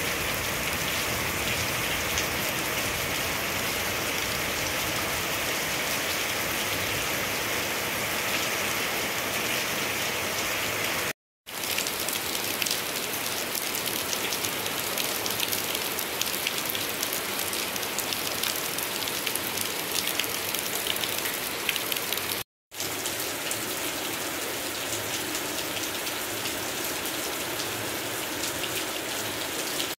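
Heavy rain falling steadily on leaves, roofing and wet ground: a dense, even patter that cuts out for a moment twice.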